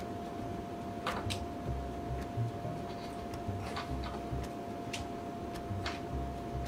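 Irregular small clicks and ticks of a hand crimping tool squeezing a butt connector onto a headlight wire, with the wires being handled, over a faint steady hum.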